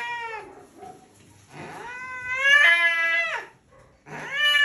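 Domestic cat yowling angrily while restrained: a long yowl trailing off about half a second in, a second long yowl from about 1.5 to 3.5 seconds, and a third beginning near the end. Each call is loud and drawn out and falls in pitch as it ends.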